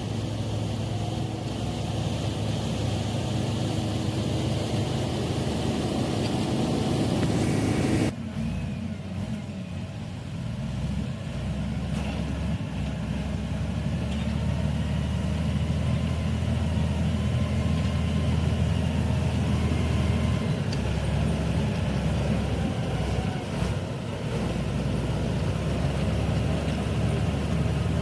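Komatsu D85E-SS crawler bulldozer's diesel engine running steadily while working. About eight seconds in, the sound changes abruptly and drops quieter, then builds back up over the next few seconds.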